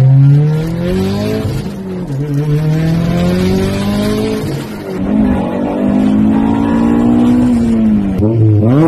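Car engines accelerating hard, each one's pitch rising steadily over a few seconds, with abrupt changes to a different engine about five seconds in and again near the end.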